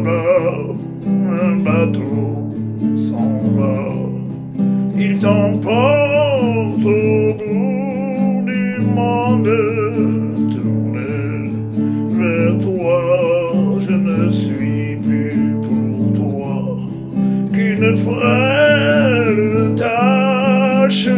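A man singing a French chanson, his voice wavering on held notes, to his own strummed acoustic guitar.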